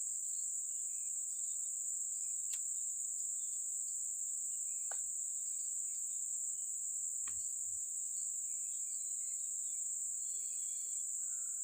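Steady high-pitched chorus of insects chirring without a break, with a few faint clicks.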